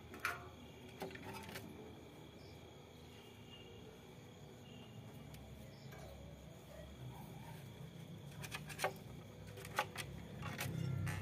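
A few sharp clicks and knocks, two near the start and two more late on, over faint rustling and a low rumble that builds near the end.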